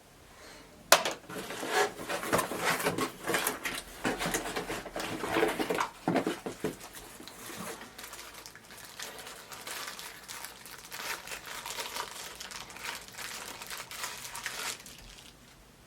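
Packaging and plastic vacuum parts being handled: crinkling and rustling of wrapping with small plastic clicks and knocks, a sharp click about a second in, busiest in the first half and lighter after.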